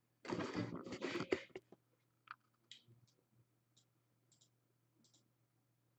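A short burst of breathy or rustling noise lasting about a second near the start, then a handful of faint, short computer mouse clicks spread out over the next few seconds.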